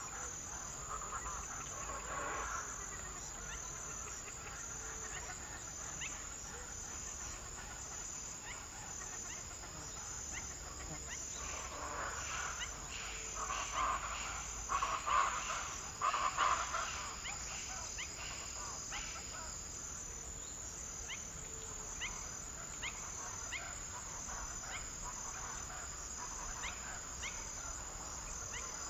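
Insects chirping, cricket-like, in a steady, evenly pulsing high trill. A louder run of calls lower in pitch comes about halfway through, and short sharp chirps follow over the second half.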